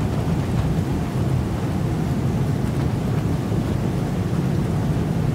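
Wind-driven rain on a cruise ship's window, heard from inside: a steady low rumble with a few faint ticks of drops striking the glass.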